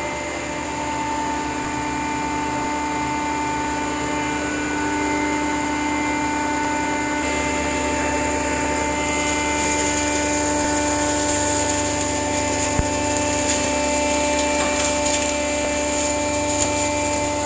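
Stainless steel hammer blower pulverizer running: its electric motor and blower give a steady hum and whine. About seven seconds in a high hiss joins and the sound grows a little louder, with a few small ticks near the end.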